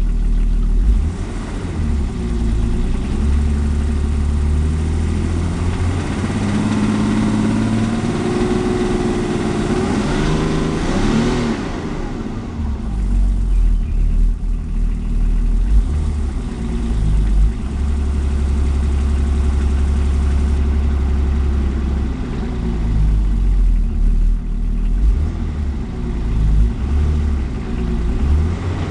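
BMW 325tds 2.5-litre straight-six turbodiesel running, with a heavy low rumble; its pitch climbs over several seconds and drops back sharply, then rises and falls more briefly later on. The recording carries a noise the owner considers abnormal, but it is not identified.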